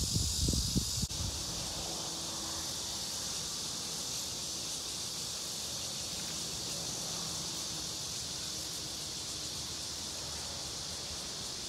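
Steady high-pitched chorus of insects buzzing in sunny trees, unchanging throughout. In the first second there is a low rumble of wind or handling noise on the microphone, which cuts off abruptly.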